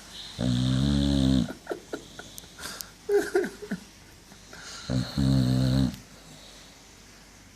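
Boxer dog snoring in its sleep: two long rattling snores, each about a second long, one near the start and one about five seconds in, with a few short noises between them.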